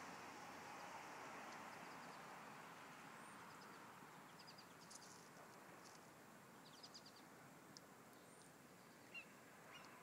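Faint outdoor ambience: a steady hiss of background noise, with scattered short, high bird chirps starting about three seconds in.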